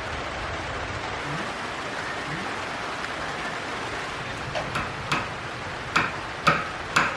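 Steady rain, an even hiss. In the second half come about six sharp taps, each louder than the rain.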